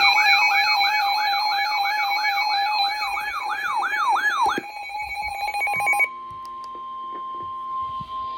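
Electronic emergency-alert tones: a steady tone under a repeating falling sweep, about a dozen sweeps, which stops about four and a half seconds in. About six seconds in, the tones give way to a single quieter steady tone.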